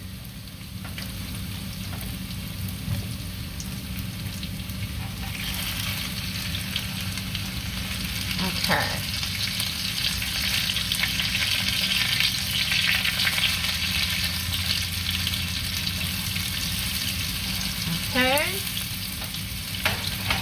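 Shredded-potato patties sizzling in oil in a frying pan while they are flipped with spatulas, which scrape against the pan. The sizzle grows louder about five seconds in.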